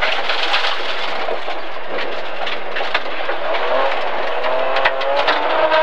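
Inside the cabin of a BMW E30 325i rally car at speed: its straight-six engine running under load over loud road noise with scattered sharp knocks from the surface. From about halfway through, the engine note rises steadily as the car accelerates.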